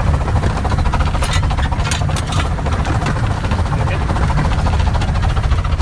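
Steady running noise in the cab of the 15-inch-gauge Pacific steam locomotive Northern Chief under way: a low rumble of wheels on rail and engine, with a few short sharp sounds about one and a half to two and a half seconds in.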